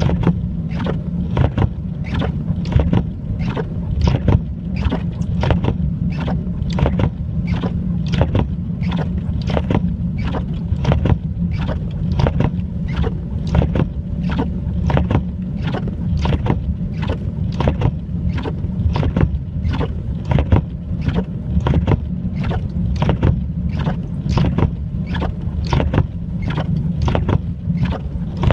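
Steady crunching footsteps through snow, about two a second, over a constant low rumble.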